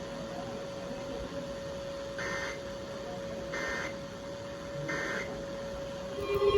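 Emergency Alert System end-of-message data bursts from a weather radio: three short, buzzy digital chirps about a second and a half apart, marking the end of the severe thunderstorm warning. A steady faint hum runs underneath.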